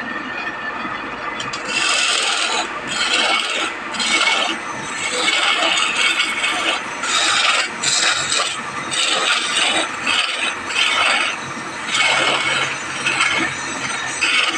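Wood being worked by hand with an abrasive tool: starting about two seconds in, a dozen or so rough back-and-forth scraping strokes, each under a second, with short gaps between.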